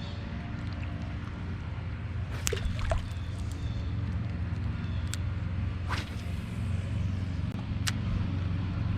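A steady low mechanical drone, with several short, sharp high clicks over it.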